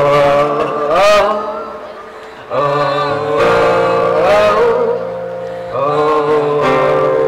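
A man singing long, held phrases with pitch slides, accompanied by an acoustic guitar.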